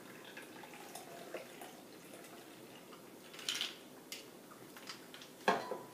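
Cocktail poured from a metal shaker through its strainer into a stemmed glass: a faint liquid trickle. A short clatter comes a little past the middle, and a sharp light knock with a brief ring near the end.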